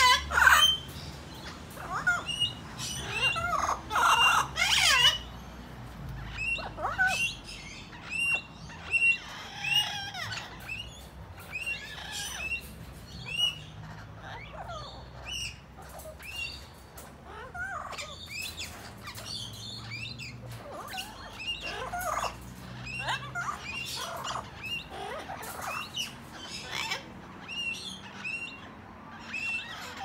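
Parrots calling, an Amazon parrot and wild Australian king parrots: a long run of short high chirps, about one a second, with louder harsh squawks in the first five seconds.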